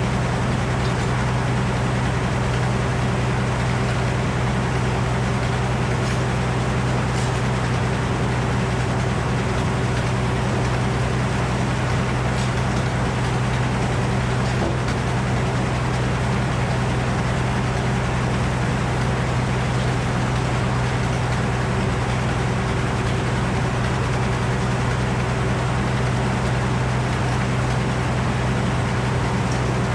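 A large engine running steadily at a constant speed, with a steady low hum and no change in pitch or loudness.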